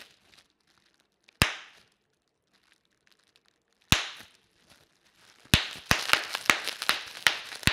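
Bubble wrap popping: single sharp pops about a second and a half in and again about four seconds in, then a quick run of many pops as a person sits down on the sheet.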